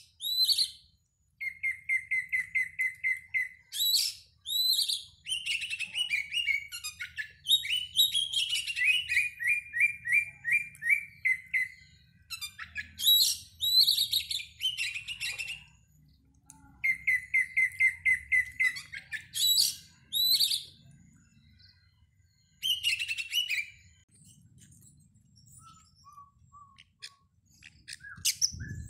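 Oriental magpie-robin (kacer) singing a varied song in bursts with short pauses: fast rattling trills of repeated notes, rising whistled notes and high buzzy phrases, growing quieter near the end. It is a pancingan (lure) song, used to provoke a caged kacer into singing.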